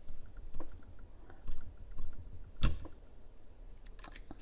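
Scattered clicks and taps as Kyoho grape jellies are handled and popped out of their skins and plastic packaging, with the loudest sharp click a little over two and a half seconds in.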